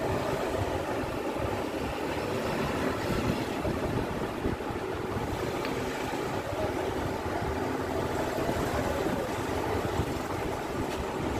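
Steady low mechanical rumble, like a running engine or motor, with no clear rhythm or change.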